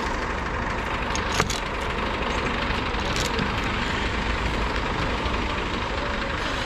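An engine idling steadily, with one sharp click about a second and a half in.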